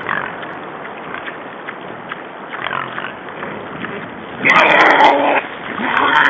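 Wild boars making squeaky noises: faint scattered squeaks, then a loud squeak about four and a half seconds in that lasts about a second, and another loud one starting near the end.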